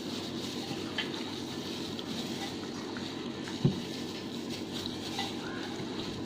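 Steady background hum with a few light clicks and one short, louder knock a little past halfway.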